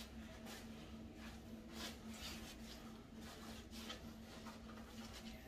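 Faint, scattered rustles and soft handling noises as hands work at a foam taxidermy form, over a steady low hum.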